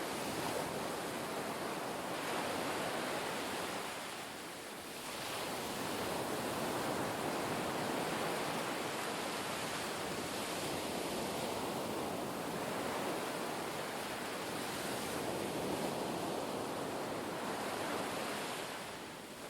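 Sea water rushing and surging with wind, a steady noisy wash that swells and eases, dropping back briefly about four seconds in and again near the end.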